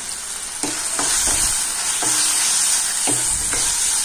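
Onions, tomatoes and green chillies sizzling in hot oil in a stainless steel kadai while a metal spoon stirs and scrapes the pan, with several short knocks of the spoon against the steel from about half a second in.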